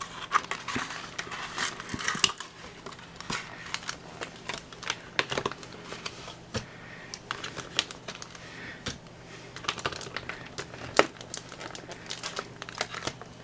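Plastic wrapping on a Pokémon trading-card box crinkling and tearing as it is pulled open, with irregular sharp crackles and one louder snap near the end.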